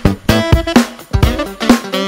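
Instrumental background music with a drum beat and pitched instruments.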